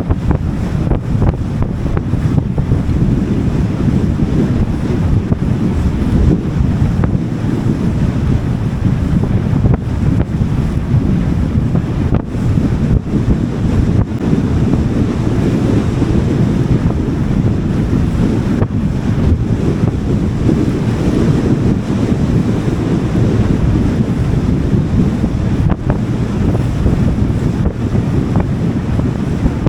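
Wind buffeting the microphone on a boat under way, a loud, steady low rush with water noise beneath it.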